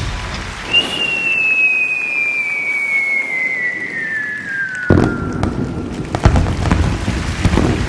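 A firework: a long whistle falling steadily in pitch for about four seconds, then a sudden bang about five seconds in, followed by crackling and scattered pops.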